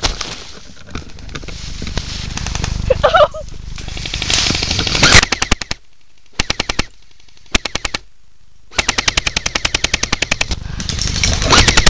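Airsoft gun firing in full-auto bursts, a rapid, even clatter of shots. The firing starts about four seconds in and comes as about five bursts of different lengths with short pauses between them.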